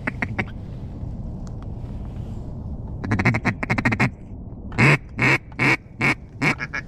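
Mallard duck call blown close by: a fast chattering run of short notes, then five loud quacks about half a second apart.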